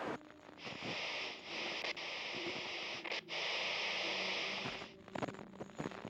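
A steady static-like hiss starts about half a second in, breaks off briefly in the middle and cuts off about a second before the end.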